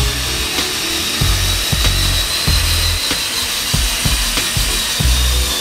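Background music with a steady beat, over the steady high whine of a cordless drill motor turning the cart's gear drive.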